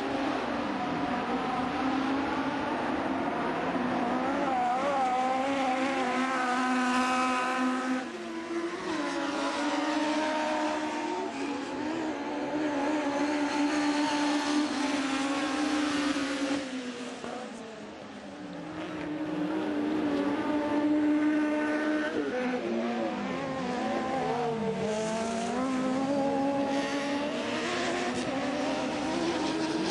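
Autocross race car engines running hard, the engine note climbing and dropping again and again as the cars accelerate and back off. The sound dips briefly about eighteen seconds in, then swells again.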